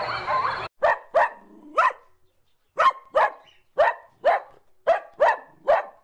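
A dog barking repeatedly in short, sharp barks, mostly in quick pairs about a second apart. Before the barking, a different sound cuts off abruptly a little under a second in.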